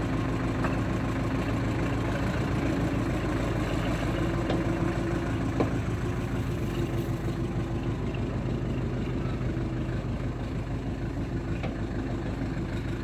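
Diesel engine of an Ostrówek backhoe excavator running steadily at idle while the backhoe boom swings, with a few light clicks.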